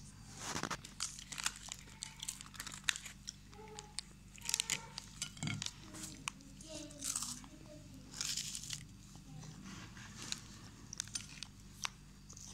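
Foil wrapper of a packet of vanilla cream wafers crinkling as it is handled, with crisp crunches of the wafers breaking. The crackles come irregularly, many in quick clusters.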